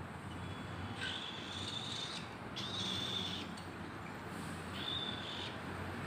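Cockatiel chicks giving raspy food-begging calls while being hand-fed from a syringe: three drawn-out calls of about a second each, high and steady in pitch.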